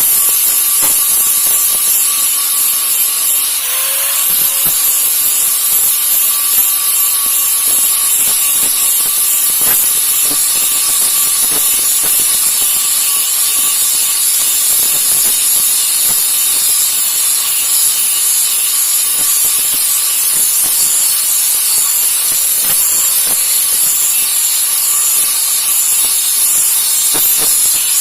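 A golok's steel blade being ground with a power grinder: a steady, high hiss with a faint constant whine, unbroken throughout.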